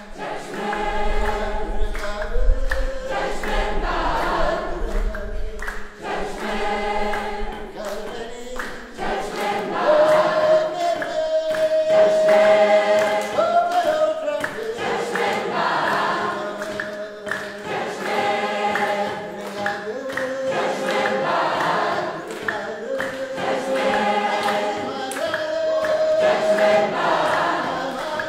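A large mixed group singing together in chorus, unaccompanied, with hand claps keeping time. The song moves in short repeated phrases, with one long held note in the middle.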